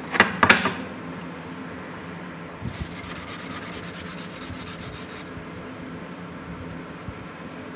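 Gloved hand rubbing a steel chisel blade in rapid back-and-forth strokes: a hissy scrubbing that is strongest for a couple of seconds in the middle. Just after the start come a couple of sharp knocks, the loudest sounds.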